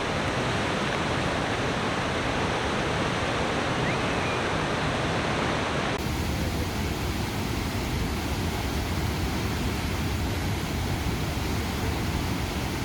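Steady rush of falling and flowing water from the River Tees at High Force waterfall. About six seconds in the sound changes abruptly to a brighter, fuller rush with more low rumble.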